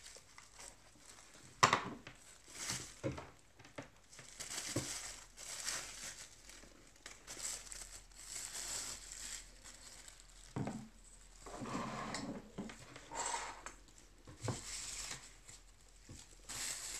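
Plastic packaging and tissue paper crinkling and rustling as they are handled during unpacking, in repeated spells, with a few short knocks as items are set down on a wooden table; the sharpest knock, about two seconds in, is the loudest sound.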